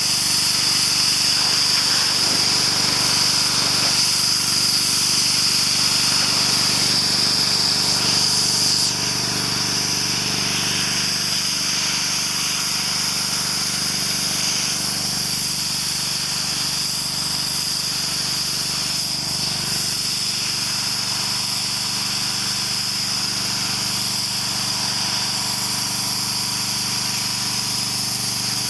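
Pressure washer running and spraying: a steady machine hum under a high, hissing water jet. The level drops slightly about nine seconds in.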